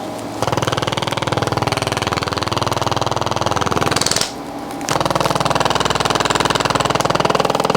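Computerized chiropractic impulse instrument tapping rapidly and evenly against the upper spine, in two runs split by a brief pause about four seconds in.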